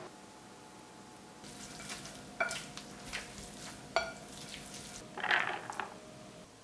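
Kitchen handling sounds: a soft hiss with two sharp clinks that ring briefly, about a second and a half apart, then a short rustle near the end.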